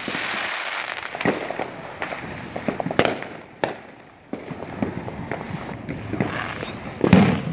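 Aerial fireworks bursting overhead: scattered sharp bangs with crackling between them, and the loudest bang near the end.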